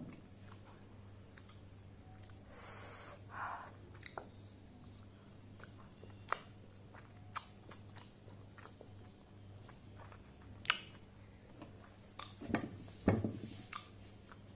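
Close-miked chewing of a steamed momo dumpling: soft, wet mouth clicks and smacks scattered through, with a louder run of smacking near the end. A faint steady low hum lies underneath.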